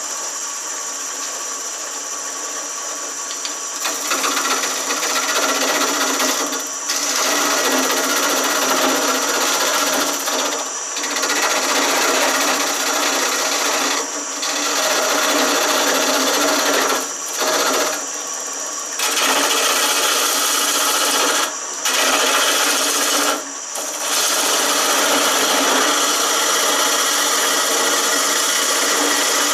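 Shopsmith 520 running as a wood lathe at about 950 RPM, with a steady motor whine. From about four seconds in, a carbide-tipped turning tool cuts the spinning hardwood spindle with a rough scraping hiss, broken by several short pauses where only the machine runs.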